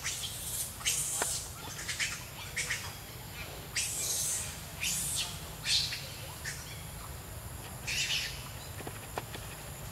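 Birds chirping: a dozen or so short, high-pitched calls over the first eight seconds, then none, over a steady low rumble.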